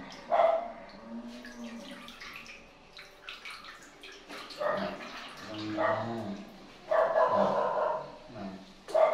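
Short, bark-like animal calls in several bursts, the longest about seven seconds in, over faint water sounds.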